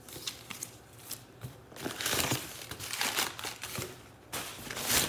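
Sheets of packing paper crinkling and rustling as they are pulled out of a cardboard shipping box, in several bursts, the loudest near the end.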